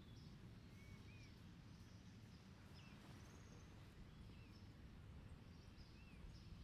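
Quiet outdoor ambience: a handful of faint, short bird chirps, scattered through, over a low steady rumble.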